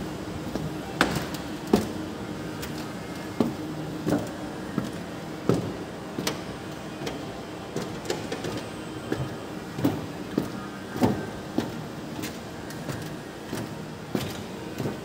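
Footsteps clicking on a hard floor at an even walking pace, about three steps every two seconds, over a steady background hum of a large indoor space.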